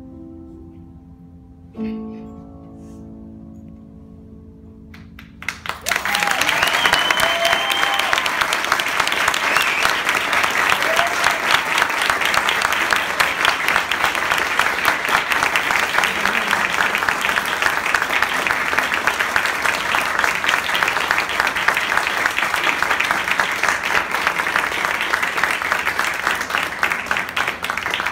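The closing chords of a solo piece on a Steinway grand piano: a chord is struck about two seconds in and rings out, fading. Then audience applause starts about five seconds in and stays steady and loud.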